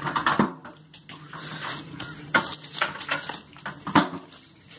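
Plastic bucket on a rope being lowered down a concrete-ringed well, knocking and scraping against the well wall several times at irregular moments.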